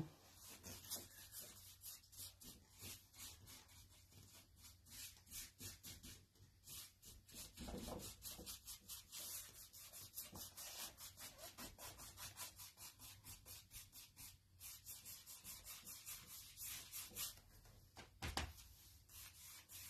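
A paintbrush scrubbing chalk-style paint across a painted wooden bookshelf panel in fast, short back-and-forth strokes, a faint, dry, scratchy brushing. There is a soft knock near the end.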